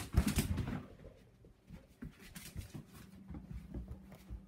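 Scuffling and light knocks as a dog and the person filming move about on a wood floor, loudest in the first second. After that come faint scattered knocks over a low steady hum.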